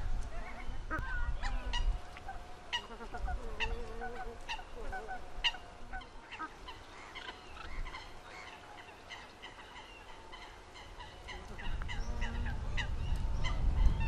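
A flock of geese calling, with many short, high honks overlapping through the whole stretch. A low rumble sits under the calls at the start and again near the end.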